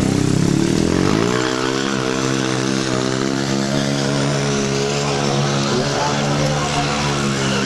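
Stunt motorcycle's engine revving up over the first second or so, then held at high revs with a steady, slightly wavering note.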